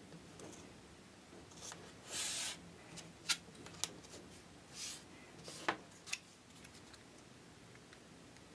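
Thin card pieces of a paper miniature kit handled and slid on a cutting mat: two short scraping rustles and a few sharp taps and clicks.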